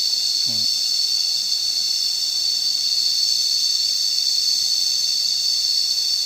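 Cicadas singing: a loud, steady, high-pitched drone that holds without a break.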